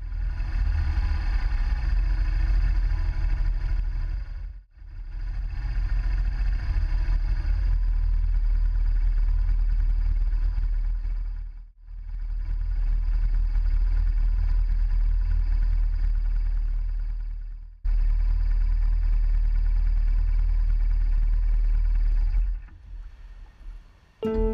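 Motorcycle engine rumble and wind rush heard from a camera on a moving motorcycle, steady and loud. It breaks off abruptly for a moment several times. Near the end it drops quieter and uneven as the bike comes to a stop.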